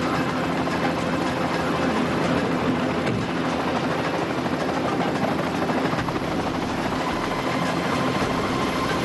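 Helicopter in flight, its rotor and engine noise running loud and steady.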